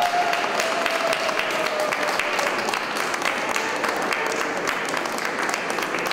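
A group of people applauding, many hands clapping at once in a steady, dense patter, with voices faintly under it.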